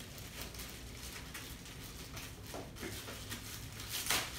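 Toy packaging being handled while a toy tea set is unpacked: scattered rustling and light knocks, with a sharper, louder rustle or knock about four seconds in. A brief vocal sound from the toddler comes a little past halfway.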